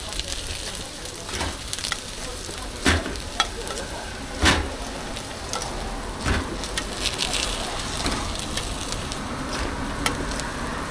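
Food sizzling as it fries in hot oil. A few sharp utensil knocks or clicks cut in now and then.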